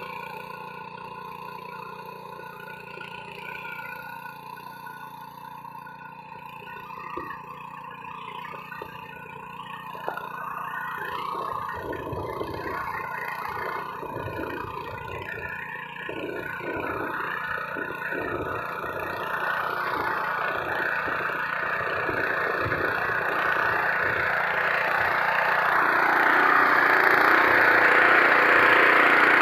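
Honda FQ650 power weeder's small petrol engine running steadily under load as its rotary tines churn dry soil, with irregular clattering from about ten seconds in. It grows steadily louder toward the end.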